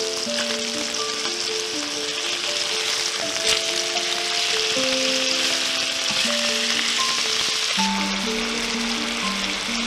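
Food sizzling steadily in hot oil in a pan, with a single light click about three and a half seconds in. Gentle background music with slow held notes plays over it.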